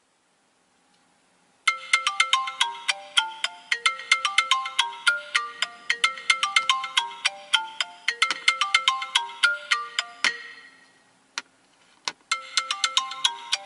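Smartphone alarm ringtone going off by a sleeper's bed: a quick, plinking melody of short bell-like notes that starts about two seconds in, breaks off around ten seconds, and starts again near the end.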